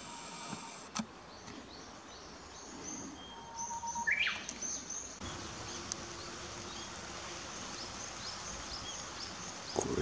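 Outdoor birdsong: a Japanese bush warbler sings once about three seconds in, a held whistle followed by a quick falling flourish, over thin high chirps of small birds repeating throughout.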